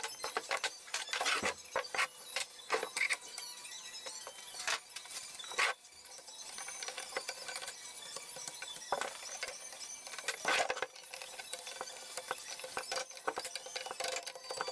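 Hand tools clicking, scraping and clinking on a steel motorcycle swingarm as a pick and needle-nose pliers work at a clip on a rod end. The clicks come at uneven intervals, the sharpest about a second and a half in, just before six seconds and about ten and a half seconds in.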